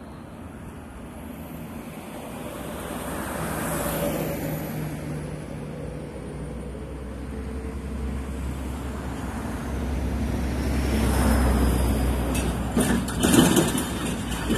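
Road traffic passing on a city street: cars going by one after another, each swelling and fading as it passes, loudest around 4 s and again around 11–12 s, over a steady low rumble. A few sharp crackles near the end.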